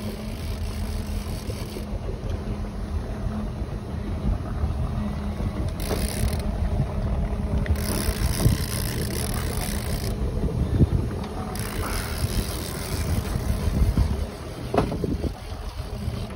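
Tiara 2700 Open sport-fishing boat's engine running steadily at trolling speed, a constant low hum. Wind gusts over the microphone several times.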